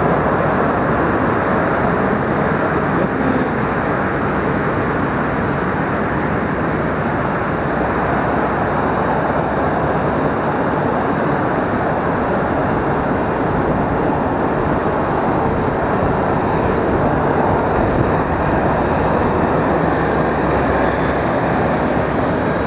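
Steady loud roar of jet aircraft turbine noise, with a thin high whine above it.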